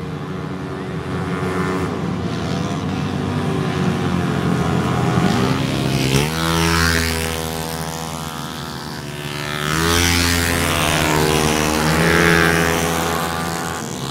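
Engines of 160cc automatic racing scooters running at high revs, a steady droning note that climbs about five seconds in and swells again near the ten-second mark.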